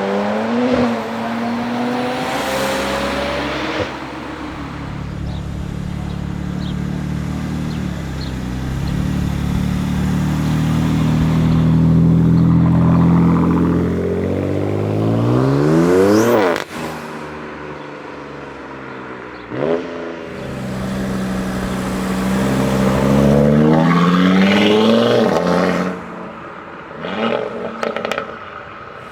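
Performance car engines revving and accelerating: a long pull rising in pitch that cuts off suddenly about halfway through, then further rising revs and a few short blips near the end.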